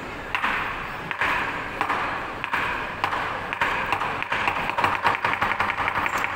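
Lion dance cymbals clashing in spaced single beats, then a fast, even run of light strikes over the last couple of seconds as the accompaniment builds.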